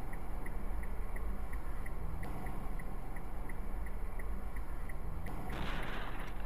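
Steady low rumble of road and engine noise from a moving car, with faint regular ticking about three times a second. A short burst of hiss comes about five and a half seconds in.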